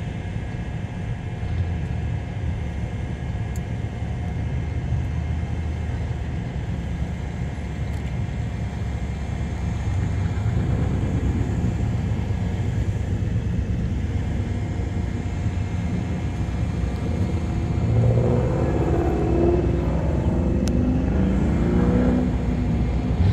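Cars' engines rumbling low as they idle and roll off one after another. About 18 seconds in, a 1966 Corvette Sting Ray's V8 gets louder as it drives up close, its exhaust note rising and falling as it pulls slowly past.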